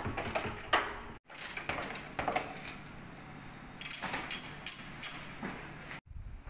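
Scattered clicks and knocks of hand tools and plastic trim parts being handled on a car's stripped front end, with two brief dropouts to silence, about a second in and near the end.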